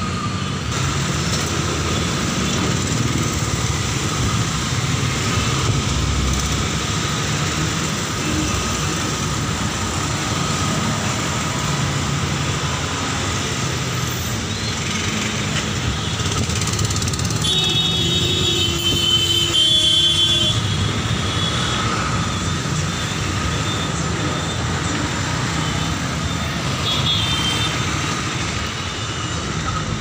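Busy city street traffic heard from a moving vehicle: a steady rumble of engines and road noise. Vehicle horns toot a few times a little past halfway, and once more briefly near the end.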